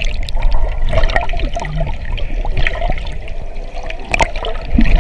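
Underwater bubbling and gurgling of moving seawater, muffled, with scattered clicks and pops and a louder surge about four seconds in.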